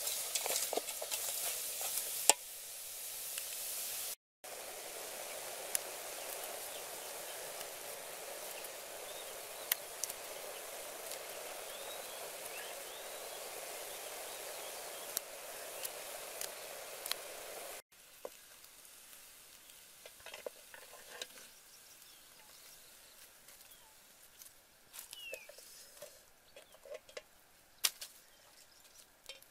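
A hand stirring raw small shrimp in an aluminium pot, a clicky rustle. About four seconds in comes small shrimp cooking in the pot, a steady sizzling hiss that cuts off suddenly about eighteen seconds in. After that it is much quieter, with light clicks and a few short bird chirps near the end.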